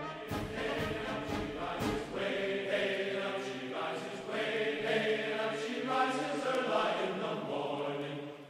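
Background music: a choir singing slow, sustained chords.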